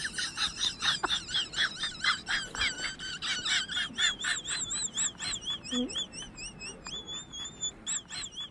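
A small bird singing a fast run of high, wavering whistled notes, slowing later into longer warbles with one held note near the end.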